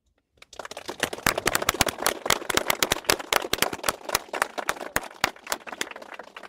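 A crowd applauding: dense clapping that starts about half a second in and thins out near the end.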